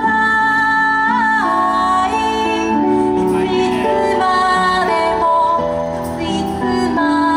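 A woman singing a slow song over instrumental accompaniment, holding long notes with a slight vibrato.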